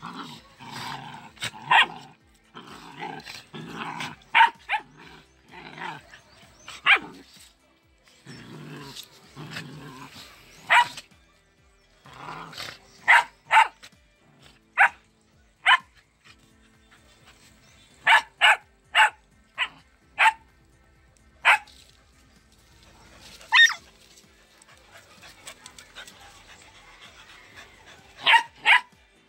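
Dogs play-fighting: for about the first ten seconds a dense run of growling and grumbling as they wrestle, then a scattered string of short, sharp yips and barks through the rest.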